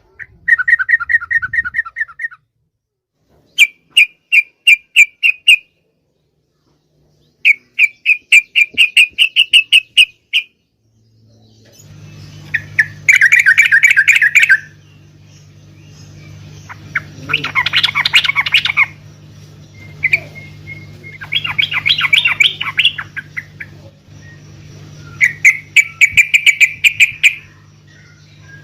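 Yellow-vented bulbul (trucukan) chirping in phrases of rapid repeated notes, each phrase about two seconds long with short pauses between. From about halfway through, a steady low hum runs beneath the calls.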